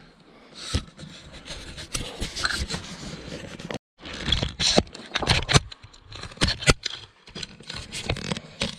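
Camera handling noise: irregular scrapes, rubs and knocks close to the microphone as the handheld camera is swung round and turned onto its holder. The sound cuts out completely for a moment about four seconds in.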